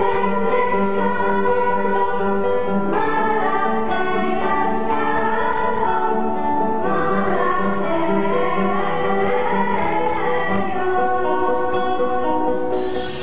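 Children's choir singing a slow melody, accompanied by a plucked string instrument playing repeated low notes.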